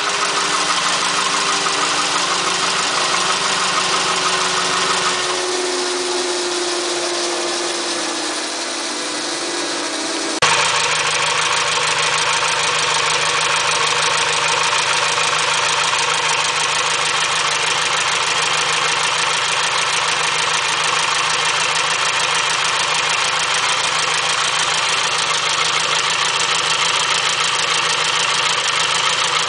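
1936 Indian Four's air-cooled inline four-cylinder engine running steadily at idle. Between about five and ten seconds in, the sound drops a little with a slowly falling tone, then it changes abruptly and runs evenly to the end.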